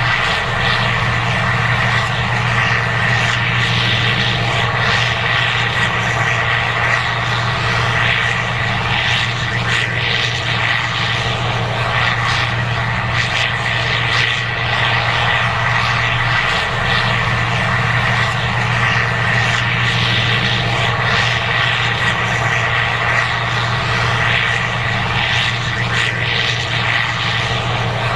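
Case IH 2188 Axial-Flow combine running steadily under load while harvesting corn: a constant engine drone with a steady high whine over the rush of the machine.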